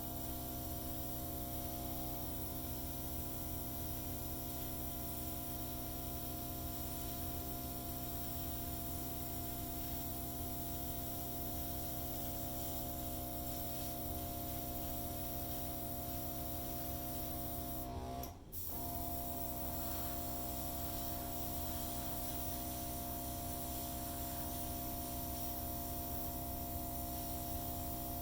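Hairdryer running steadily, a constant motor hum and blowing air, used to blow acrylic paint across a dutch-pour canvas. It cuts out briefly about eighteen seconds in, then carries on.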